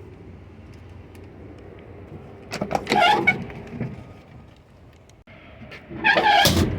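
Door of an old steel car body being worked: two loud creaking, clunking noises about three seconds apart, the second ending in a heavy low thump.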